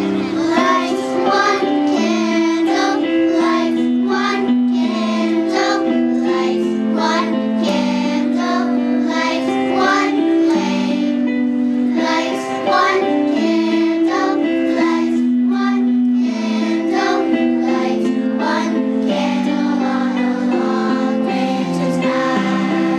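Children's choir singing a song in unison over instrumental accompaniment with a steady beat.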